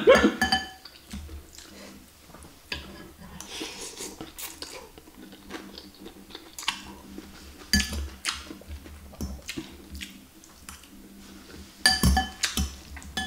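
Metal fork and spoon clinking and scraping against a glass bowl of bakso noodle soup in scattered strokes, louder and more frequent near the end, with chewing and noodle slurping in between.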